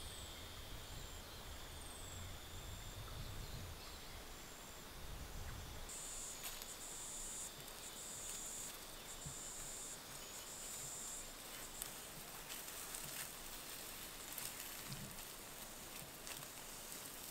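Quiet Australian bush ambience. A steady high insect drone gives way, about six seconds in, to high-pitched insect buzzing in on-off bursts of about a second. Scattered faint rustles and clicks run through it.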